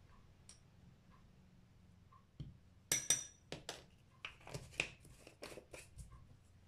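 Quiet for about two seconds, then a run of small clicks, knocks and rustles as spice jars and a tea towel are handled on a kitchen counter. The loudest is a sharp clink about three seconds in.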